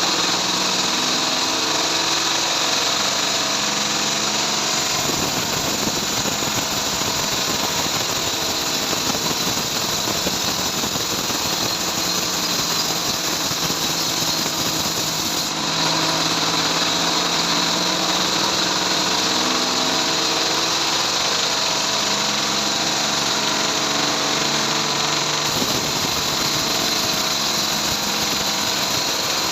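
Bandsaw mill running steadily while sawing trembesi (rain tree) wood, a continuous machine drone with no breaks; its tone shifts slightly a few times.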